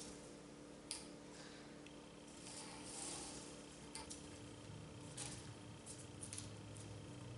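X-Acto knife blade slicing the canvas along the edge of a gator foam panel: faint scraping strokes with several light ticks.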